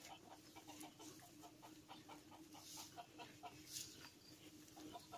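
Faint chicken clucking, a run of short notes several a second that slackens after the middle and picks up again near the end, over a low steady hum. Two brief rustles break in partway through.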